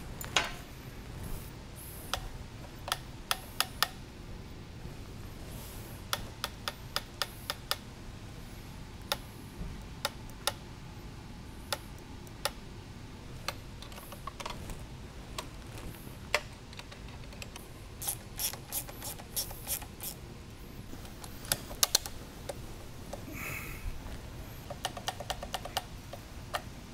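Hand tools working the bolts of a motorcycle's aftermarket rearset brackets: short quick runs of sharp metal clicks, like a ratchet wrench being cycled, over a steady low hum.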